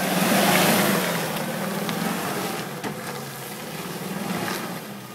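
Toyota Hilux engine running as the truck crawls over rough ground, loudest in the first second and then slowly fading as it pulls away.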